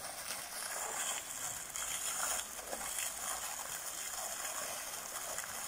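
Garden-pond fountain: a single jet of water falling back and splashing steadily onto the pond surface.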